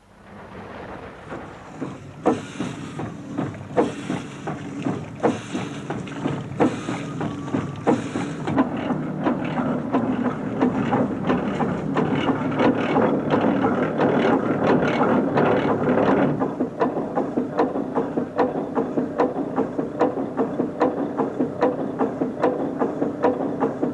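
Steam locomotive working: after fading in, it gives loud exhaust beats with a hiss of steam about every second and a half, then from about a third of the way in a quicker, steadier run of beats.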